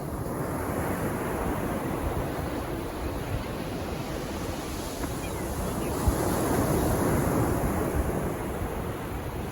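Calm sea waves breaking and washing up the beach, swelling about a second in and again from about six seconds, with wind buffeting the microphone.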